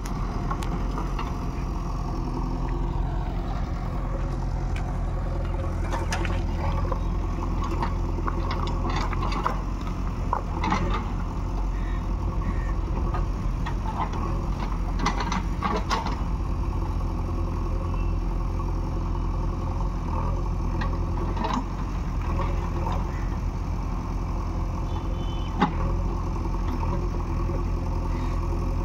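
JCB 3DX backhoe loader's diesel engine running steadily, with scattered sharp knocks and clanks through it; the loudest knock comes near the end.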